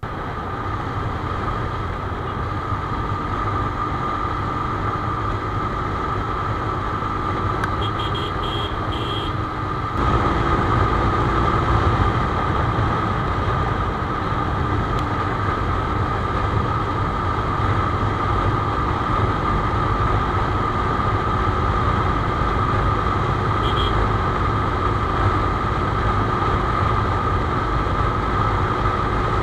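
Benelli TNT25 motorcycle riding at highway speed, about 100 km/h. A steady rush of wind and road noise sits over the single-cylinder engine's running note and a steady whine. It gets a little louder about ten seconds in.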